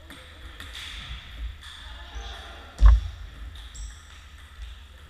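Table tennis play: scattered light knocks of the ball and bats, with one loud thump about three seconds in.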